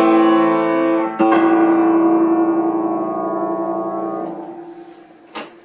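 Piano playing the closing chords of a piece: a loud chord, then a final chord about a second later that is held and fades away over several seconds. A short knock sounds near the end.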